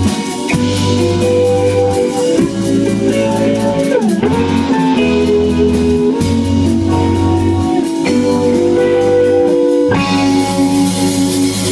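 Live instrumental jazz-funk-rock band playing: guitar lines over a bass line and drum kit. A guitar note bends down and back up about four seconds in, and the cymbals grow louder near the end.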